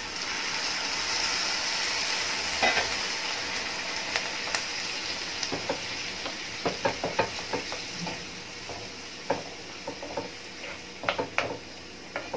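Boiled water poured into a hot pan of fried onion masala and mashed potato sizzles, the hiss swelling in the first couple of seconds and then slowly dying down. A wooden spoon then stirs the mixture, knocking against the pan again and again.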